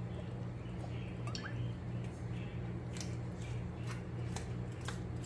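A steady low hum in a small kitchen, with a few light clicks and taps as the olive oil bottle is handled over a stainless steel bowl of tabbouleh.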